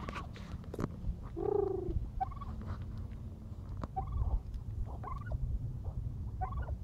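Domestic turkey gobbling about a second and a half in, followed by a few shorter calls spaced a second or so apart.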